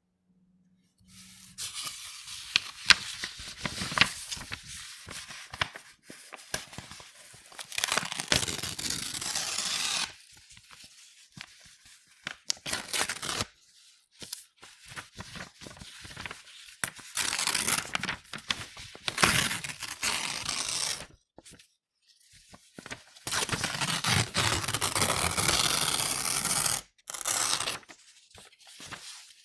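A4 sheets of paper being torn, a series of rips of varying length: some slow and crackly with sharp snaps, others long and even, with short pauses between them.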